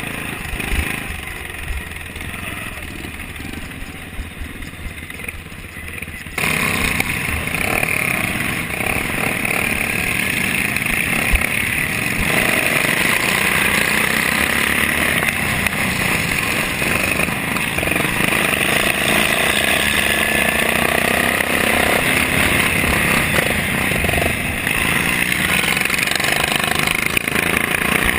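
Racing lawn mower engine running at high revs under load, heard from on board the mower, with other racing mowers close by. The sound jumps suddenly louder about six seconds in.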